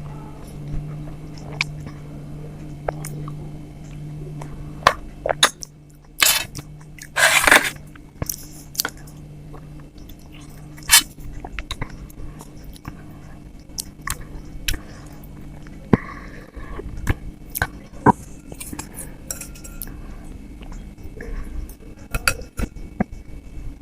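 Close-up chewing and mouth sounds of someone eating soft idli soaked in sambar, with scattered clicks and clinks against a plate. Two louder, noisy bursts come about six and seven seconds in, and a steady low hum sits under the first half.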